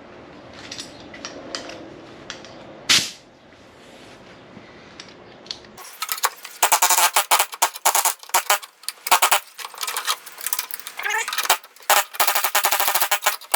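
Pneumatic air chisel hammering in rapid stop-start bursts from about six seconds in, chipping seam sealer and rusted sheet metal. Before it starts, one sharp click about three seconds in.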